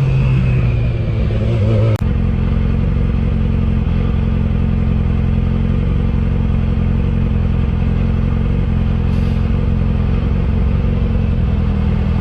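Motorcycle engine running under way, its pitch easing down over the first two seconds; then, after an abrupt change, a steady engine note held at constant speed.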